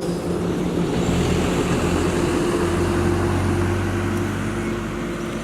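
Road traffic: a motor vehicle's engine running with a steady low hum under a wash of road noise, swelling a second in and easing off near the end.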